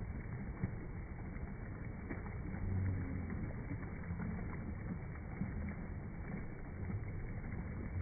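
Steady rushing water of a waterfall, with a deep low rumble that swells about three seconds in and again near the end.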